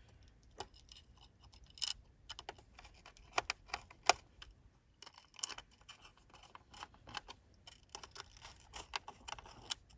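Irregular light clicks and small metallic taps from handling and fitting small screws and washers by hand.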